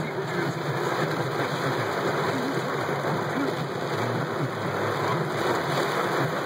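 Heavy thunderstorm rain falling on a car's roof and windshield, heard from inside the car: a loud, steady, dense hiss with no letup.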